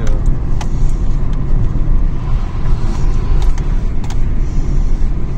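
Peugeot 207's suspension knocking with a 'clong-clong' clunk over bumps, several irregularly spaced knocks over steady road rumble from inside the car. The owner has ruled out the control arms and anti-roll bar links and wonders whether the strut top mounts are to blame.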